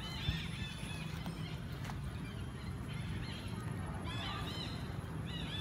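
Young macaques screaming during a chase-fight: clusters of short, high-pitched, arching squeals, a few in a row near the start, again around the middle and near the end, over a steady low hum.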